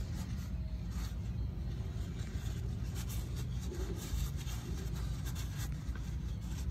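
Light scrapes and clicks of hands and tools working at a tow dolly's greased wheel hub and spindle nut, over a steady low rumble.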